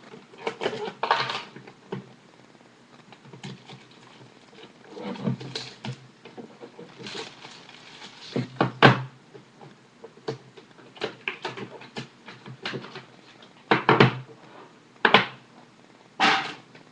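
Hands opening a sealed 2010 Topps Five Star card box: irregular knocks, taps and rustles of cardboard and wrapping, in bursts with short quiet gaps.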